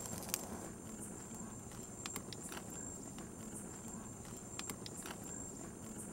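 Wood fire crackling in a fire pit under a metal grill grate: irregular sharp pops and snaps over a low steady rush of burning.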